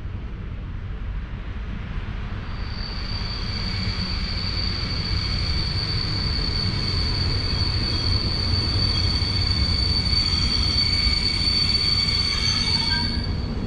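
EU07 electric locomotive hauling a passenger train into the station, its low rolling rumble growing louder as it nears. From about two seconds in, a steady high-pitched squeal of the wheels and brakes as the train slows, cutting off near the end.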